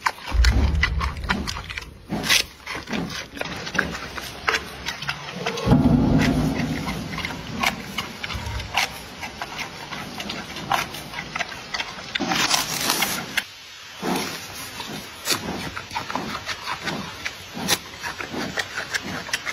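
Giant panda chewing bamboo: a run of crisp, irregular cracks and crunches. A low rumble sounds near the start and again about six seconds in.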